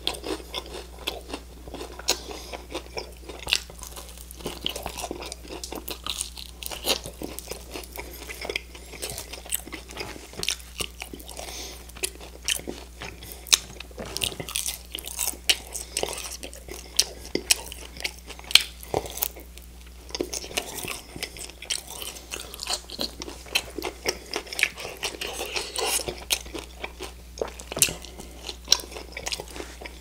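Close-miked chewing and crunching of crispy fried chicken wings, many irregular crisp crunches and wet mouth clicks one after another, over a steady low hum.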